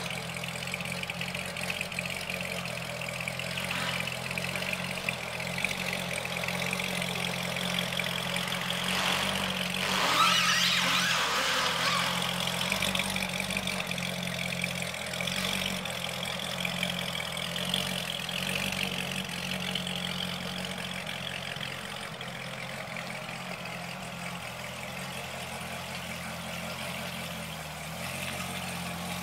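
Chevrolet Corvette ZR1's supercharged 6.2-litre V8 idling steadily, with a brief louder patch about ten seconds in.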